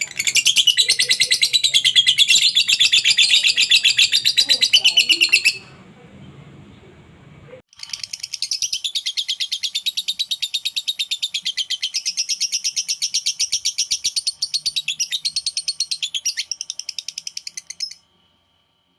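Lovebird ngekek: a long, fast chattering trill of evenly repeated shrill notes. It breaks off after about five seconds, starts again about two seconds later and runs on until near the end.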